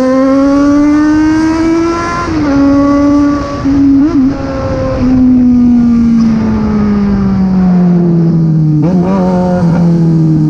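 Yamaha XJ6 inline-four engine running loud through an open straight pipe, revving up steadily for about two seconds and holding. It gives a quick throttle blip around the middle, then winds down slowly, with another short blip near the end.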